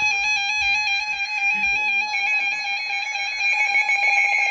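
Emergency Alert System attention tone sounding for a tornado warning: a loud, steady electronic alarm tone with a rapidly alternating warble in its upper pitches.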